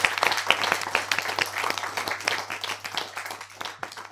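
Applause: many hands clapping densely, thinning out and fading away near the end.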